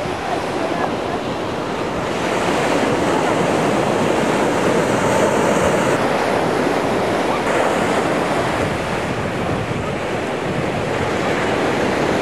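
Ocean surf washing onto a sandy beach: a steady rush of breaking waves.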